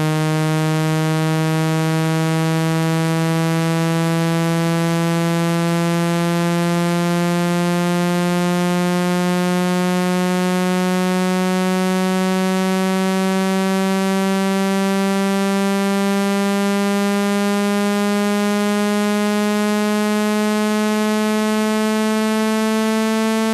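Synthesized speaker water-eject tone: a loud, buzzy tone rich in overtones, climbing slowly and steadily in pitch, played to shake water out of a phone's speaker mesh.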